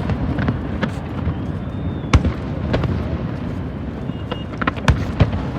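Fireworks display: a run of sharp bangs from bursting shells, the loudest about two seconds in and another near the end, over a continuous low rumble.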